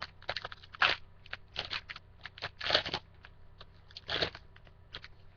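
A trading-card pack wrapper crinkling and tearing as a pack of baseball cards is opened, in irregular crackles with a few louder rips.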